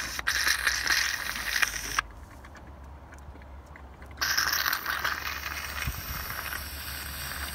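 Scraping and rattling with many small clicks from a gloved hand working a sludge-covered plastic engine cap. It comes in two spells: about two seconds at the start, then again from about four seconds in.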